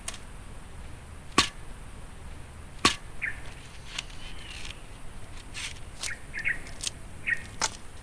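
Machete striking a green bamboo pole: two sharp, loud knocks about a second and a half apart, followed by a run of lighter cracks and taps as the bamboo is split.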